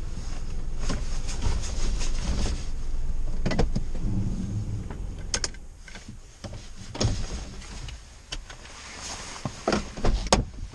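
Inside a small car: a steady low rumble as it rolls slowly and stops, then a string of sharp clicks and knocks from the cabin. The loudest knock comes near the end, as the door handle is pulled to open the door.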